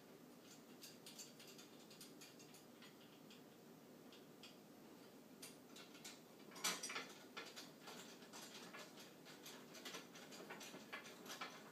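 Faint, irregular light clicks and ticks of small metal hardware being handled and tightened: the hub kit's nuts and screws going onto the steering wheel. There is a louder cluster of clicks a little past halfway and a busier run of them near the end.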